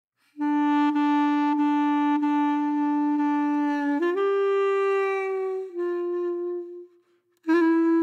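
Music: a single woodwind instrument playing slow, long held notes, with a brief break about seven seconds in.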